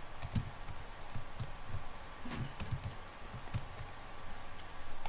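Computer keyboard being typed on: irregular, uneven keystrokes, several a second.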